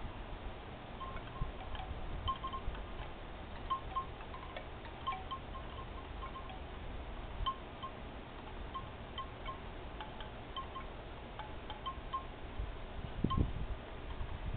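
Faint, irregular tinkling of chimes, short high notes scattered every second or so, over low wind noise on the microphone, with a low bump about 13 seconds in.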